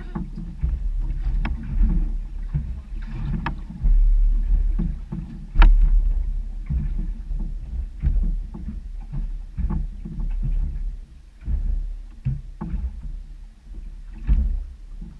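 Choppy water slapping against the hull of a small fishing boat, with irregular sharp knocks every second or so over a low, uneven rumble of wind on the microphone.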